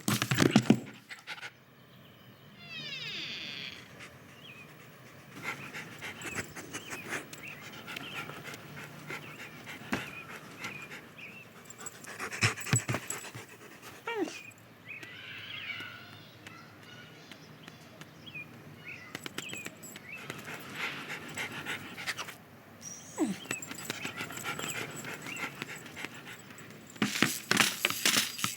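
Dog panting, among a run of scattered knocks, thuds and rustles from an animated film's sound effects.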